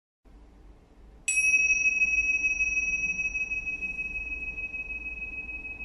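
A 'chiin' ding: a small metal bell struck once about a second in, ringing with a clear high tone that slowly fades.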